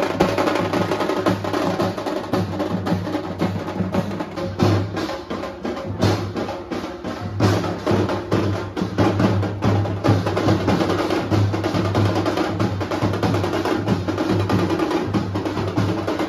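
Street drum band playing a fast, steady beat on slung drums, with sharp stick strokes and cymbal crashes, over a steady low hum.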